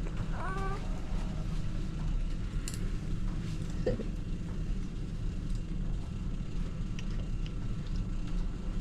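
Steady low hum, with a few faint clicks and a brief high-pitched squeak about half a second in.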